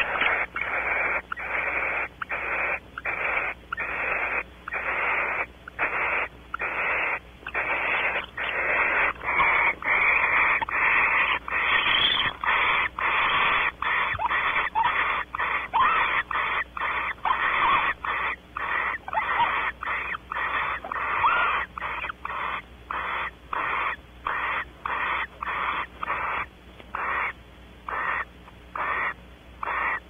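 Barn owls hissing in the nest box: a rapid, steady series of short rasping hisses, about one and a half a second.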